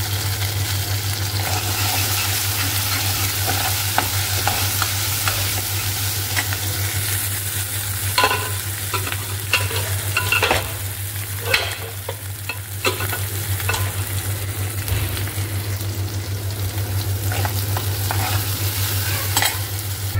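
Chopped onions and garlic sizzling steadily in hot oil in a steel pan for a dal tempering, with a metal ladle stirring and clicking against the pan, most often in the middle stretch. A steady low hum runs underneath.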